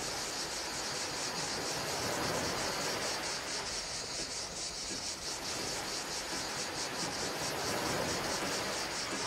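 Opening of an ambient music track: a steady hissing noise texture, like surf, with a faint quick pulse running through its high end.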